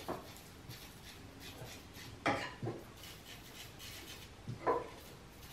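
Quiet handling sounds from working at a snowmobile's carburetors with an aerosol can of carb cleaner: light rubbing and faint clicks, with a couple of short knocks a little over two seconds in and another knock near the end.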